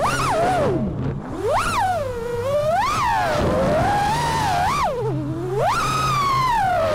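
Five-inch FPV freestyle quadcopter's brushless motors (RCinPOWER Wasp Major 1860kv) whining loudly. The pitch swoops up and down sharply every second or so as the throttle is punched and cut through flips and dives.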